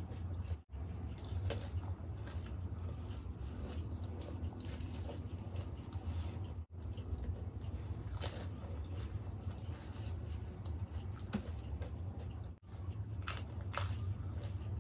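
Close-up mouth sounds of someone chewing dahi golgappa: the crisp puri shells crunch between the teeth with wet, squishy chewing of the yogurt filling, in scattered short crackles. A steady low hum runs underneath.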